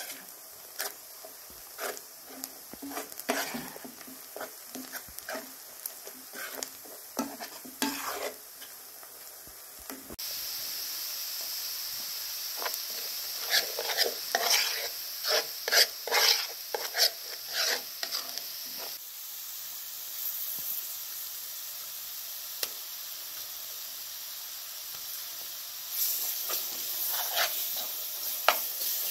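Metal spoon scraping and knocking against the pot as onions are stirred while they fry, over a steady sizzle. The sizzle gets louder about ten seconds in and again near the end.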